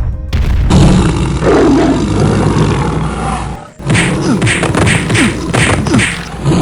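Cartoon tiger roar sound effect: a loud growling roar lasting about three seconds. A quick run of thumps follows, about three a second.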